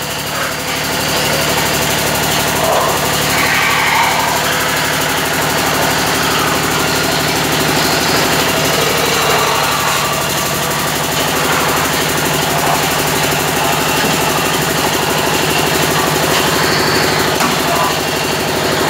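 Metal-spinning lathe running with a steady machine hum as a long hand lever tool presses a spinning aluminium disc into a bucket shape.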